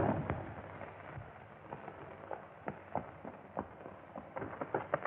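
Footsteps of people running on hard ground: scattered steps at first, quickening into a rapid patter near the end, over the hiss of an early sound-film track.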